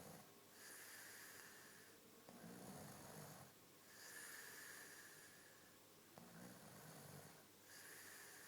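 A man snoring faintly in a steady rhythm: a low snore followed by a breathy hiss, repeating about every three and a half seconds.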